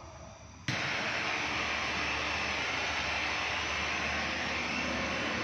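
A steady rushing hiss of gas under pressure, starting abruptly under a second in, during refrigerator pipe work.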